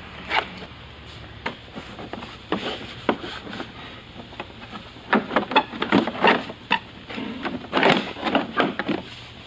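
Inner fender liner being handled and pressed into place in a wheel well: irregular knocks, scrapes and clicks, busiest from about five seconds in.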